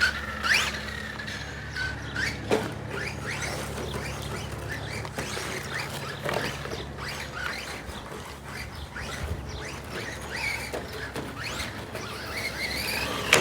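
Electric RC rally car driving on a dirt course, its motor whine rising and falling with the throttle, with birds chirping.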